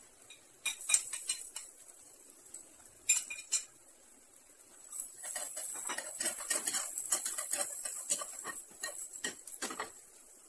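Minced onions sizzling in a nonstick frying pan, with a utensil clicking and scraping against the pan as they are stirred. A few sharp clinks come first; the sizzling and the busy scraping start about five seconds in.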